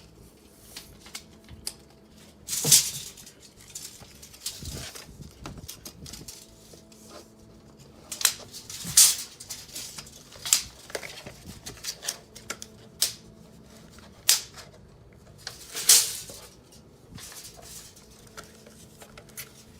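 Handling noise of a power strip's braided cord being laid out and measured: irregular sharp clicks and clatters, about six of them louder knocks.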